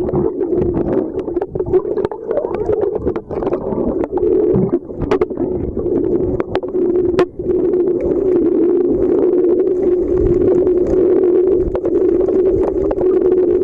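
Underwater sound picked up by a submerged camera: a steady, muffled drone with scattered sharp clicks and crackles.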